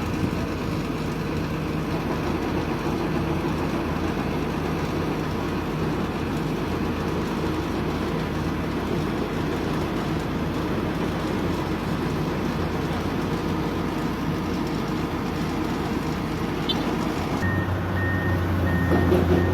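Heavy diesel engine running steadily. About seventeen seconds in, the sound changes and a warning alarm beeps about twice a second, typical of a reversing or travel alarm on heavy machinery.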